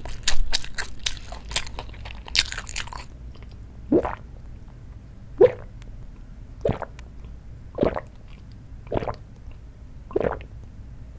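Crunchy chewing of food for the first few seconds, then a person drinking makgeolli in big gulps: six swallows about a second apart.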